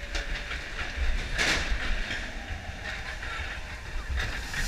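Roller coaster car running along its track, a steady low rumble with rattling clacks from the wheels and a brief louder rush of noise about a second and a half in.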